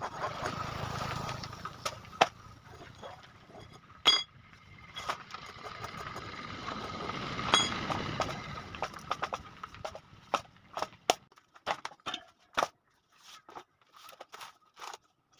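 Metal clinks and knocks from hand work on a motorcycle's spoked wheel, two of them with a short metallic ring, over a hiss that swells and fades; a run of small, quick clicks follows after about ten seconds.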